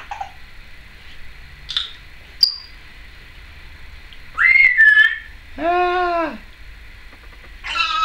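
Timneh African grey parrot whistling and calling: a few short chirps and a sharp high peep, then a loud whistle about four and a half seconds in, an arching call around six seconds, and a raspy call near the end.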